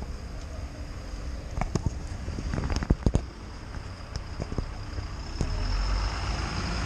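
Outdoor street rumble and wind noise on the microphone during a walk. Several sharp knocks come between about one and a half and three seconds in, and a low engine rumble swells near the end as the street and a motorcycle come close.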